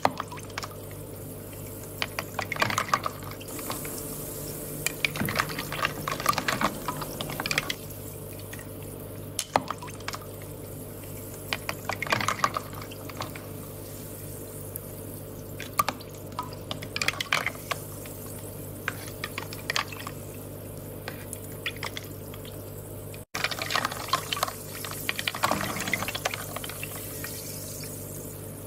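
Water sounds: irregular short bursts of trickling and bubbling every second or two over a steady low hum, cut off briefly about 23 seconds in.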